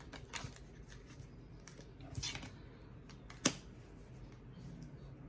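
Tarot cards being handled and laid down: a few soft rustles and card snaps, the sharpest about three and a half seconds in.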